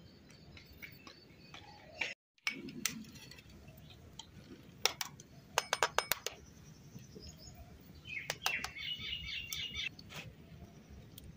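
Metal spoon tapping an egg to crack it over a steel bowl: a quick run of sharp, clinking taps about halfway through. Birds chirp around it, most busily near the end.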